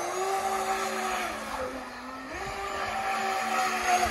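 Electric radio-controlled speedboat's motor whining at speed, over the hiss of spray from the hull. Its pitch drops as the throttle eases about one and a half seconds in, climbs again a little after two seconds, and drops once more at the very end.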